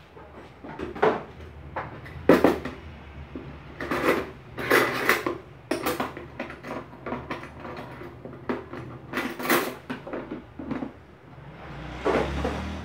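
Dishes and utensils clinking and clattering on a kitchen counter: a string of sharp knocks and clinks at irregular intervals, with a brief rustling swell near the end.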